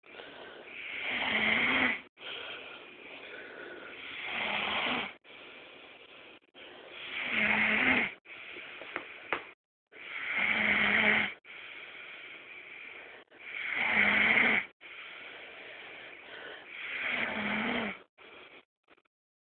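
Steady snoring. Six loud snores come about every three seconds, each one building up and then cutting off, with quieter breaths in between.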